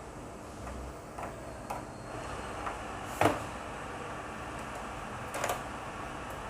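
Hands handling hard drive and NVR hardware: a few scattered clicks and light knocks, the loudest about three seconds in and another about five and a half seconds in, over a steady low hum.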